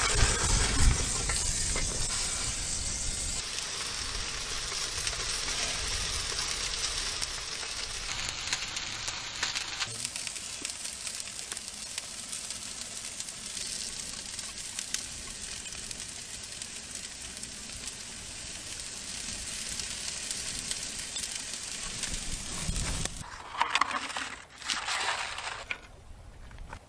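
Roasting lamb shoulder sizzling in a metal pan in a wood-fired oven: a steady hiss of spitting fat that is loudest at first and slowly eases. A metallic clink sounds about a second in, and a few louder bursts of sizzling come near the end.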